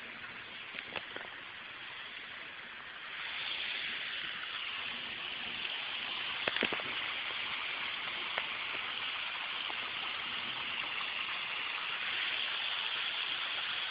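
Water pouring over rocks in a small waterfall, a steady rush that grows louder about three seconds in. A few short clicks come about a second in and again midway.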